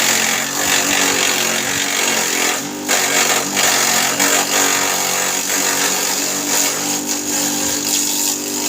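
Homemade grass chopper driven by a water-pump engine, running steadily with a high whine over the engine note.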